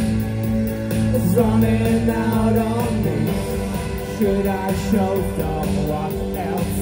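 Live post-punk band playing: male vocals over electric guitar, bass, keyboards and a steady drum beat.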